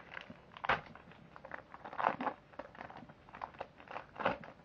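Foil wrapper of a Pokémon trading card booster pack crinkling and crackling as it is torn open and handled. The crackles come irregularly, with louder ones under a second in, about two seconds in and near the end.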